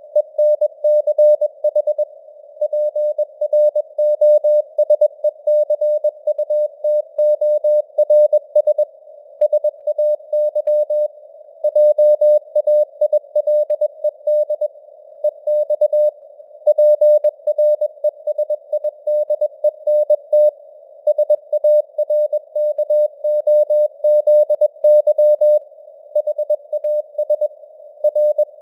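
Morse code (CW) at 21 words per minute: a single steady mid-pitched tone keyed on and off in dots and dashes, with short pauses between words, over a narrow band of simulated radio-noise hiss, the signal strength fading up and down (QSB).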